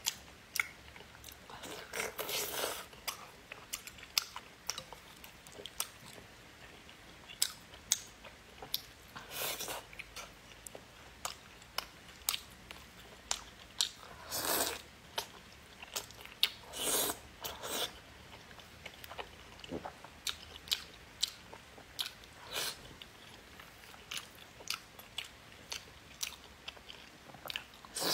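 Close-miked wet eating of saucy braised pork: chewing with many sharp mouth and lip clicks, broken by several longer, louder slurps as pieces are sucked in from chopsticks.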